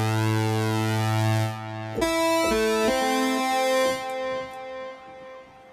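Korg Modwave synthesizer playing a pulse-wave lead patch. A held low note gives way about two seconds in to a short phrase of several notes, which fades out near the end.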